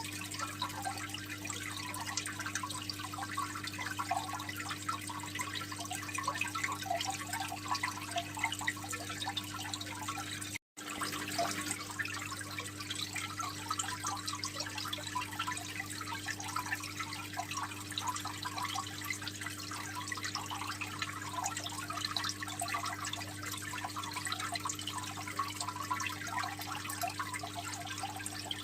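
Aquarium water trickling and splashing steadily, a dense patter of small drips and splashes over a steady low hum. The sound cuts out for an instant about ten and a half seconds in.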